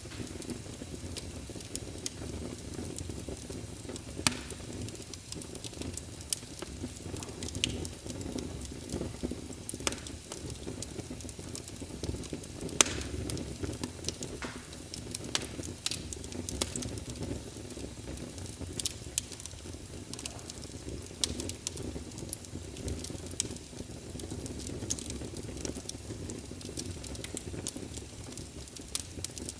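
Wood fire burning steadily: a low rushing of flame under frequent irregular crackles and pops, a few of them sharp and loud.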